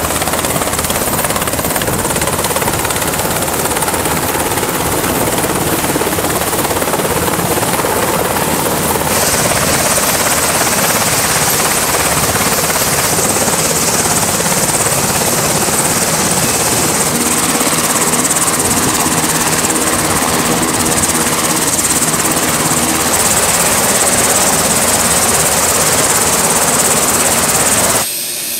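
MH-60 Seahawk twin-turbine helicopter running at close range: steady rotor and turbine noise. A higher hiss joins about nine seconds in, and the sound cuts off abruptly near the end.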